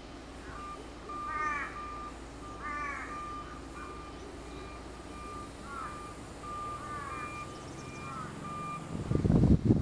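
Crows cawing in short calls about five times, over a repeated high beep. Near the end a gust of wind buffets the microphone with a loud low rumble.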